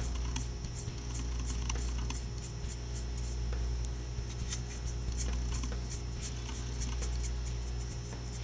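Dry paintbrush scratching and ticking in short, irregular strokes across the plastic body of a model car, over a steady low hum.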